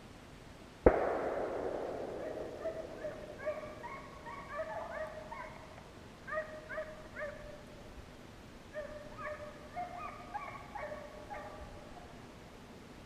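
A single gunshot about a second in, its report echoing away for a couple of seconds, then hunting hounds baying on a deer's trail in short, repeated calls.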